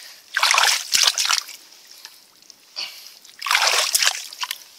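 Wet mud and muddy water sloshing and squelching as an arm digs down into a flooded hole in the mud, in a few irregular splashy bursts, the longest about a second.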